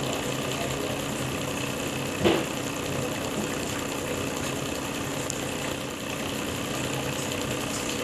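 Small homemade magnetic motor, its rotor spinning inside a salvaged microwave oven transformer coil, running with a steady hum and a fast mechanical rattle. There is a single sharp click a little over two seconds in.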